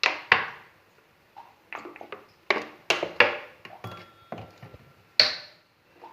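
A metal spoon clinking and knocking against steel cookware, about ten sharp strikes that each ring briefly, as groundnut oil is spooned into the pan by the tablespoon.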